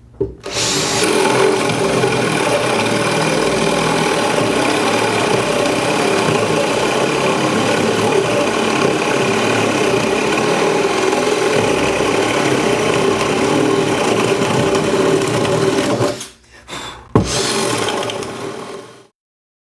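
Bosch DDS181 18-volt cordless drill boring a 1.5-inch spade bit through a 2x8 wooden board under full load: the motor whirs steadily while the bit grinds through the wood. It stops about 16 seconds in, a sharp knock follows, and the drill runs briefly once more before it cuts off.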